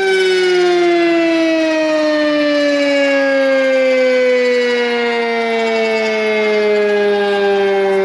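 Sentry 10V2T two-tone civil defense siren winding down after its steady alert tone, its two pitches sliding slowly and steadily lower.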